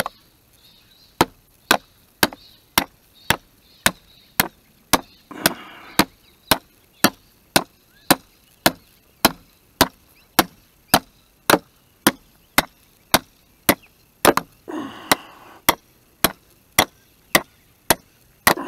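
A steel hammer striking the end of a long bolt, driving it through a timber guard rail and post. About thirty sharp, evenly paced blows, a little under two a second, with one short break about three-quarters of the way through.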